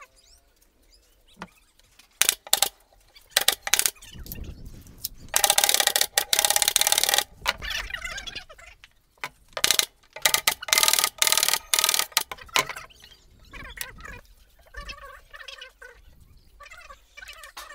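Sharp knocks and clacks of plywood boards being fitted into a speaker cabinet, with two louder noisy stretches a second or two long, about five and ten seconds in.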